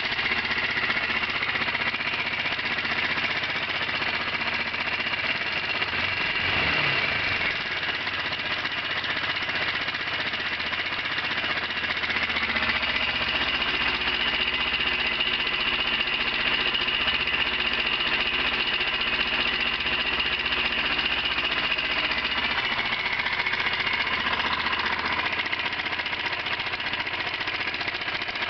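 Honda CBR125 single-cylinder four-stroke engine idling with a metallic clacking, revved briefly about six seconds in. The owner suspects the connecting rod or a valve.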